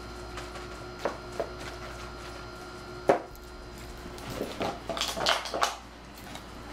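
A puppy handling a plastic water bottle and jumping off a couch: a few scattered knocks, a sharper knock about three seconds in, then a flurry of clatter and scuffing a little later.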